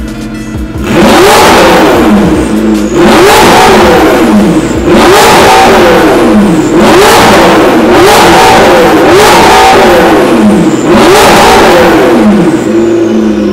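McLaren 650S twin-turbo 3.8-litre V8 breathing through an Armytrix titanium valvetronic exhaust with its valves open, blipped from idle about six times, roughly every two seconds. Each rev rises and falls in pitch, and the engine settles back to idle near the end.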